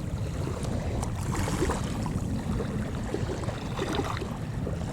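Wind rumbling and buffeting on the microphone, with faint lapping water along the shore.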